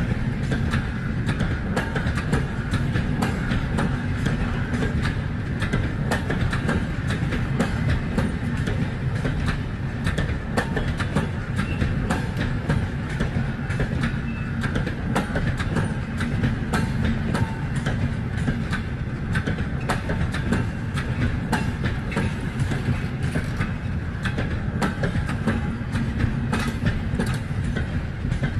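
Passenger train coaches rolling past: a steady, loud rumble of wheels on rail with a dense run of sharp clicks and clacks as the bogies cross the rail joints.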